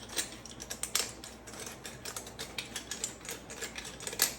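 Pepper mill grinding: a quick, irregular run of small dry clicks.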